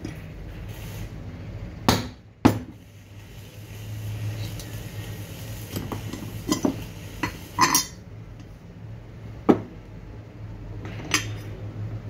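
Metal parts of a tractor alternator clinking as the end housing and pulley are handled and fitted together on a workbench: scattered sharp clinks, two loud ones about two seconds in, a cluster in the middle and another loud one past nine seconds. A steady low hum runs underneath.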